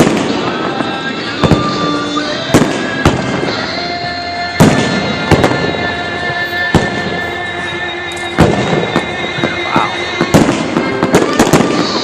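Aerial fireworks bursting, a dozen or so sharp bangs at uneven intervals, the loudest about four and a half seconds in and again near the end. Music plays steadily underneath.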